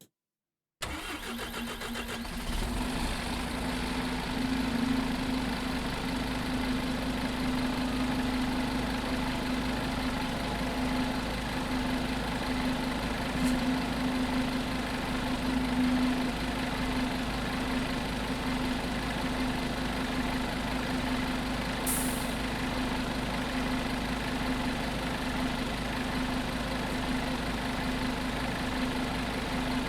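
Scania OmniCity single-decker bus engine coming on about a second in and then running steadily at idle, with a short high hiss about 22 seconds in.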